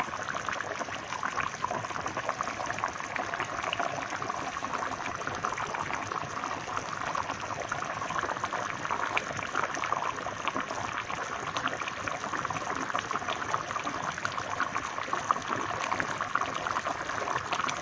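Squash stew boiling in a wide pan: a steady bubbling with many small pops as bubbles break through the broth.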